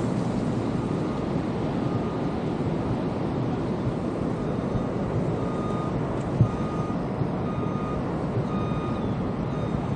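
A short electronic warning beep repeating about once a second, of the kind a vehicle's reversing alarm gives, over a steady rushing roar. A single knock comes about six and a half seconds in.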